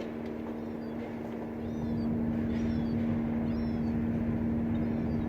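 Steady low drone of a docked ferry's engines, a constant hum with rumble beneath, getting a little louder about two seconds in. A few faint, short, high bird calls sound over it.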